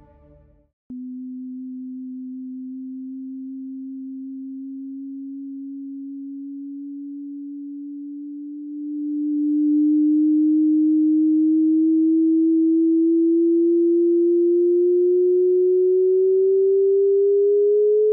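NASA sonification of the short gamma-ray burst GRB 910711: a single electronic tone that starts about a second in and slowly rises in pitch, gets louder about nine seconds in, and climbs faster near the end. The rising chirp tracks the simulated gravitational waves of two neutron stars spiralling together.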